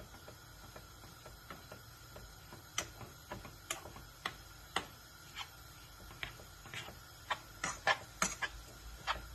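Metal spoon clicking and scraping against a metal pot while stirring cooked brown lentils, kept on the heat until they soak up all their water. Irregular sharp clicks, sparse at first and coming faster and louder in the second half.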